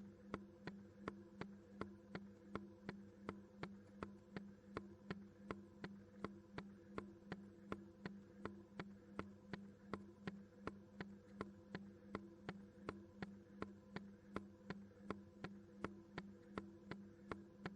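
Washing machine running: a steady low hum with even, sharp ticks about two and a half times a second.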